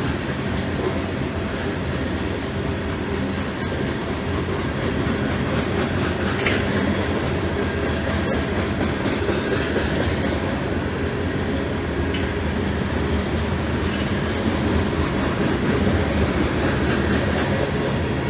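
Covered hopper freight cars rolling past, their steel wheels running steadily on the rails.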